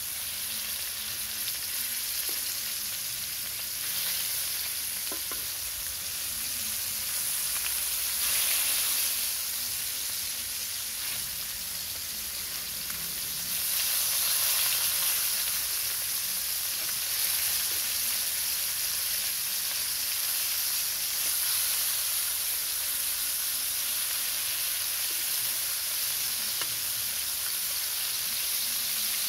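Marinated catfish pieces frying in hot oil in a steel kadai: a steady, high-pitched sizzle that swells louder a few times, around four, eight and fourteen seconds in.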